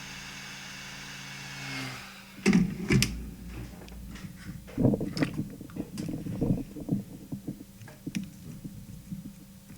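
Hot air rework station blowing steadily with a faint whine, cutting off about two seconds in. Then a run of irregular clicks and knocks as tools and the circuit board are handled on the bench.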